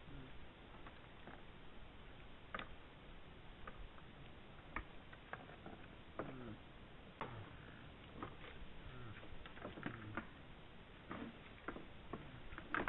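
Red deer stags' antlers clicking and knocking together irregularly while the stags spar with their antlers locked.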